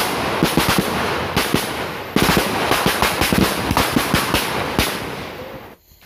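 A string of firecrackers going off in a rapid, irregular crackle of many sharp pops, dying away near the end.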